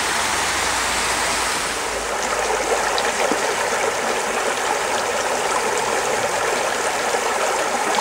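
Shallow Alpine mountain creek running over rocks: a steady rushing and gurgling of water.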